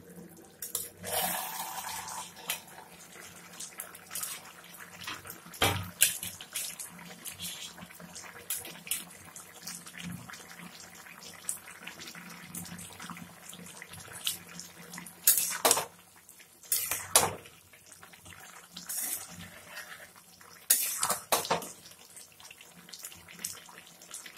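Potatoes simmering in water in a steel pan, a steady bubbling hiss, broken by irregular clinks and knocks of steel kitchenware; near the end a spatula stirs them in the pan.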